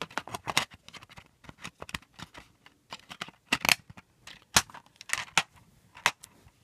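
Clear plastic DVD case and disc being handled: an irregular run of sharp clicks and clacks as the disc is taken off and pressed back onto its centre hub and the case is snapped shut.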